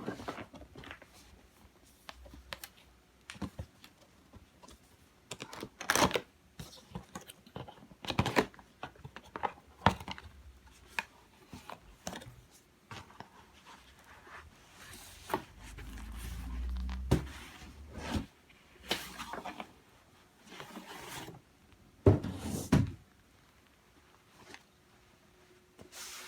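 A pillow being handled: irregular rustling and scraping with scattered knocks and soft thumps, and a low rumble about halfway through.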